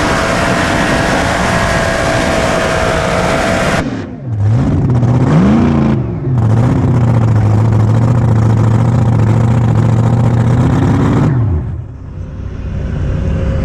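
Mini rod pulling tractor's engine at full throttle under load, cut back abruptly about four seconds in as the pull ends. It drops to a low, lumpy idle with one brief rev, runs steadily, then winds down with a falling pitch near the end, leaving a lower rumble.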